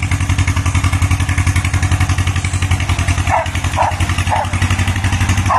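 1960 John Deere bulldozer's two-cylinder engine running with a steady, even pulsing beat. A dog gives several short, high yelps over it in the second half.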